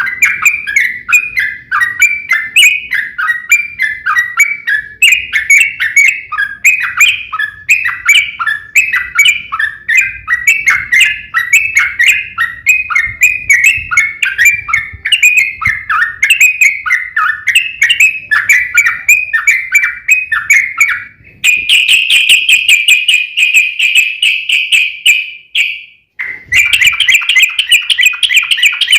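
Yellow-vented bulbul (trucukan) song: a long run of fast, bubbly chattering phrases. About 21 seconds in it switches to a faster, higher, buzzier rattling trill that breaks off briefly near the end and then starts again.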